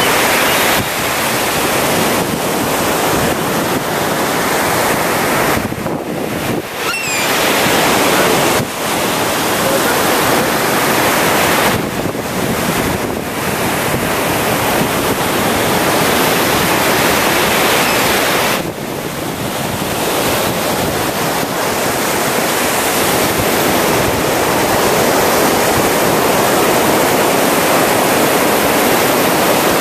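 Ocean surf breaking and washing up on a beach: a loud, continuous rush with brief dips between waves. Wind buffets the microphone.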